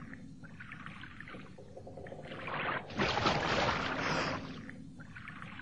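Water splashing and churning in several surges, the biggest about three seconds in, as a swimmer breaks the surface through foam.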